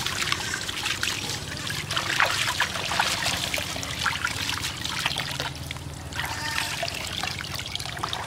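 Water from a garden hose pouring and trickling into a plastic basin, with splashing as a baby monkey is dipped in the water and lifted out.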